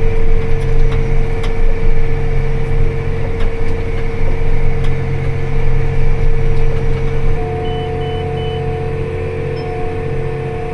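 Tractor engine running steadily with a constant whine over the rumble. About seven seconds in it settles lower and quieter, a second steady tone joins, and three short electronic beeps sound.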